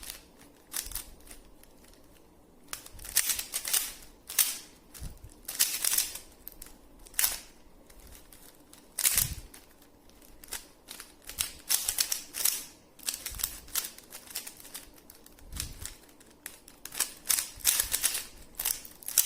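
Rubik's cube being turned fast during a speed-solve: rapid, irregular clicking and clacking of the plastic layers, in quick bursts with short pauses between them.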